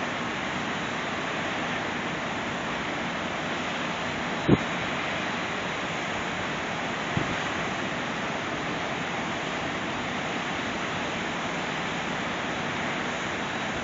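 Steady rushing wind noise, with two short low thumps about four and a half and seven seconds in, the first louder.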